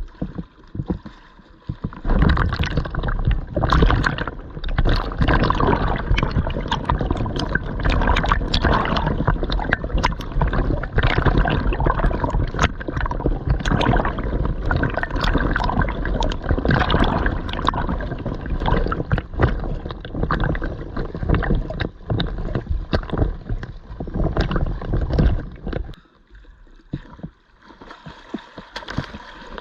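Ocean water splashing and gurgling close to the microphone: a dense run of splashes that starts about two seconds in and eases off near the end.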